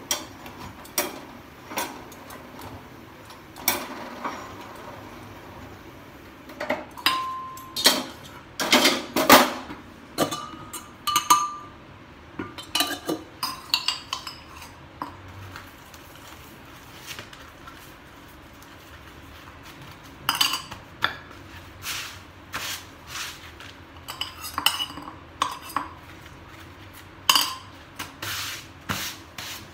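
Steel kitchen utensils clinking and clattering in scattered taps and knocks, with a couple of short metallic rings, as rotis are turned on a tawa with tongs and handled on a wooden board.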